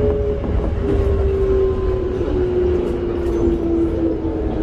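Toei 5300 series train running, heard from aboard: the Mitsubishi GTO-VVVF inverter and traction motors whine in a tone that falls steadily in pitch, over a steady low rumble of wheels on rails.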